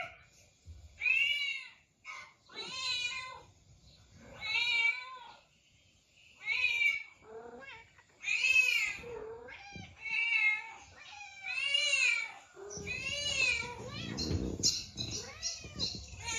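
Domestic cats meowing: a run of separate drawn-out meows, each rising then falling in pitch, about one every one and a half to two seconds. Near the end the calls turn rougher and noisier over a low rumble.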